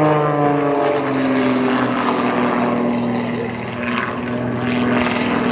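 Boeing Stearman biplane's radial engine and propeller running in flight. The engine note falls in pitch over the first second or two, then holds steady.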